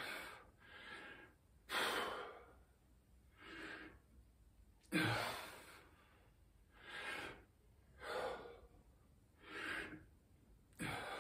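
A man breathing hard from exertion during a dumbbell shoulder set. There are about nine forceful, noisy breaths, roughly one a second, and the loudest comes about halfway through.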